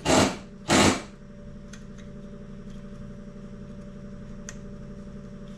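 A few faint, short clicks of a jumper wire and its spade connector being handled at a floor buffer motor's start-switch terminals, over a steady background hum.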